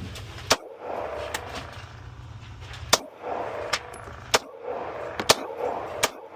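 Pistol shots: about six sharp reports fired at uneven intervals, the loudest about half a second in, about three seconds in and about five seconds in.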